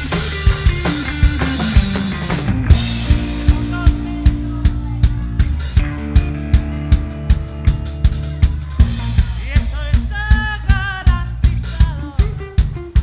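A band playing an instrumental passage: a drum kit keeps a steady beat, about two hits a second, over bass and other sustained instruments, with a wavering high melodic line a little past the middle.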